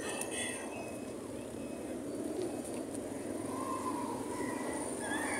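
Steady outdoor background noise around a flock of feral pigeons feeding on the ground, with faint cooing and a few brief high voices near the start and near the end.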